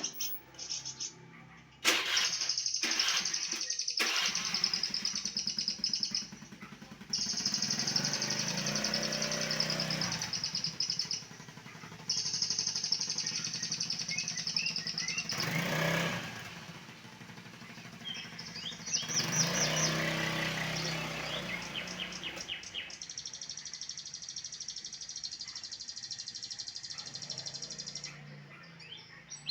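Caged white-rumped shama (murai batu) singing long phrases of fast, high trills, pausing briefly between phrases. A low engine hum swells and fades underneath several times.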